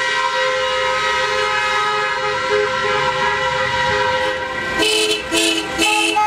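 Several car horns honking in celebration, long held blasts overlapping one another, breaking into short repeated toots from about five seconds in.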